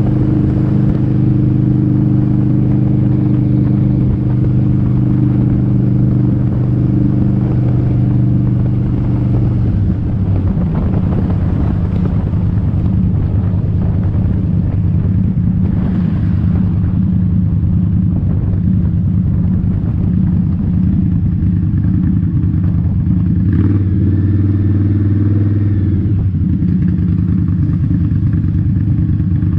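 Indian motorcycle's V-twin engine running steadily while being ridden. About ten seconds in, the engine note changes and a rougher rushing noise joins it.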